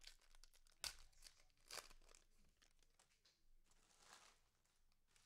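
Faint crinkling and rustling of a trading-card pack wrapper and cards being handled, with a couple of sharp little clicks about one and two seconds in.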